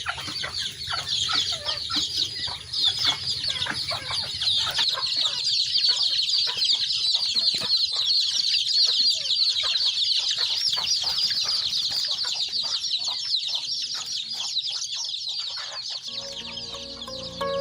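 A brood of chicks peeping continuously, many high chirps overlapping. Music comes in near the end.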